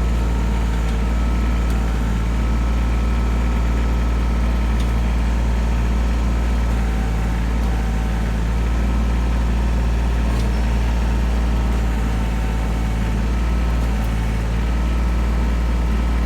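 Sawmill engine running steadily at an even speed, with a few faint clicks.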